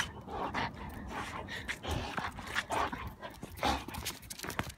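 Young dog panting close to the microphone, in quick irregular breaths.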